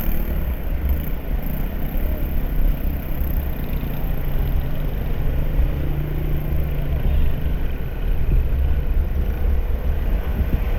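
Road vehicle running with a steady low rumble, with no clear single event standing out.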